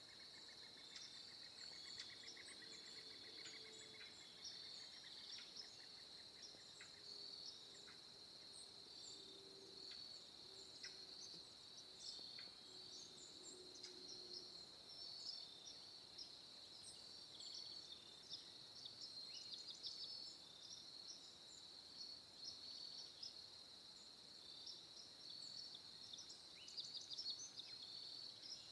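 Faint outdoor ambience: a steady high insect trill, with scattered short bird chirps above it.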